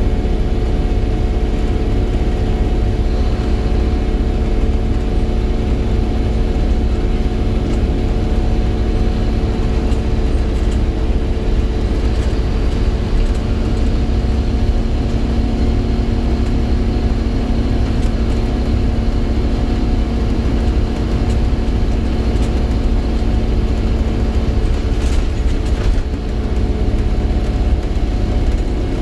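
Scania single-deck bus under way, heard from inside the passenger saloon: a loud, steady low engine and drivetrain rumble with several steady whining tones over it, one of them rising slightly midway and dropping away near the end.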